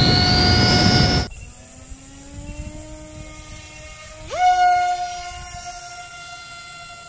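Brushless electric motor driving the propeller of a Reptile S800 flying wing. It starts with a loud, rising whine over rushing air noise that cuts off about a second in. After a quieter stretch with a faint low hum, the motor spools up sharply about four seconds in and settles into a steady whine as the wing is hand-launched under autolaunch.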